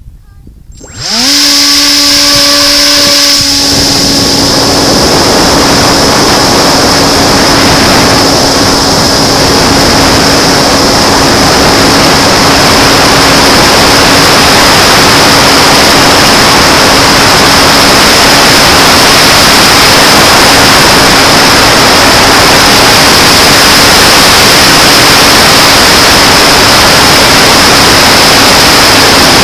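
The Sky Surfer's electric motor and APC 5.5x4E propeller spin up about a second in, the pitch gliding quickly upward. The motor then runs steadily with a high whine through the launch and climb, under a loud, steady rush of air over the onboard camera's microphone.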